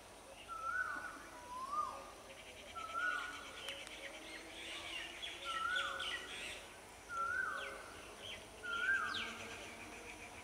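A bird calling over and over, a short note that drops in pitch, repeated about once a second, with fainter chirping from other birds.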